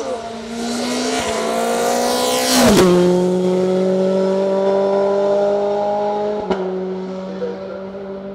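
Tatuus FR 2000 single-seater's Renault 2.0-litre four-cylinder racing engine at full throttle on a hill climb. Its pitch climbs as the car approaches, drops sharply as it passes, then holds and rises slowly as the car pulls away, with one short sharp crack near the end.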